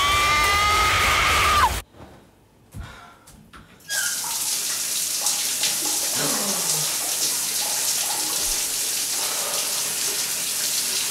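A woman's long, high scream holds for under two seconds and cuts off. After a couple of seconds of near quiet, a shower starts running with a steady spray of water.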